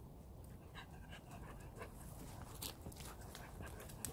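Jindo dog panting, with a couple of sharp clicks in the second half.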